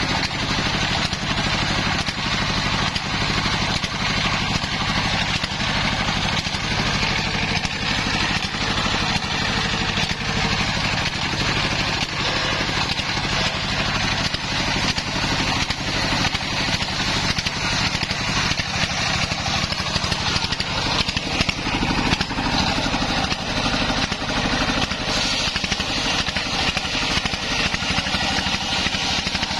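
Engine of a home-built, belt-driven circular sawmill running steadily at a constant speed while the saw blade cuts through waru logs.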